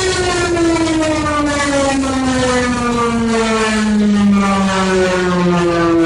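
Loud siren-style emergency alert alarm: one siren tone with many overtones slides slowly down in pitch, and about four and a half seconds in a second, higher tone joins it, also falling.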